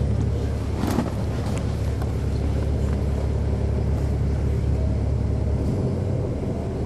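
Caterpillar C13 ACERT diesel engine of a NABI 40-SFW transit bus running under way, a steady low drone heard from on board. A brief sharp click comes about a second in, and the deepest part of the drone drops away near the end.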